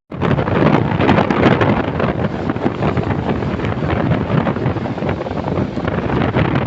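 Wind buffeting the microphone on a moving vehicle: a steady, loud rushing noise with vehicle noise underneath.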